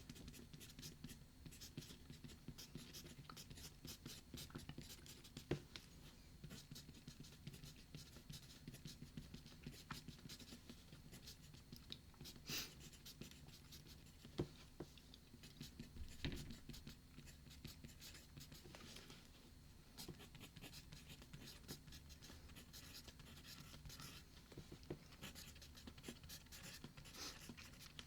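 Pen or pencil writing on paper, close to the microphone: a dense run of faint scratches and small ticks, with a few sharper taps, over a steady low hum.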